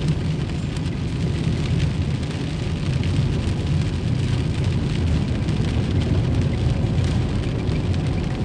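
A car driving in steady rain: a continuous low rumble of engine and tyres, with the hiss of rain falling on the car.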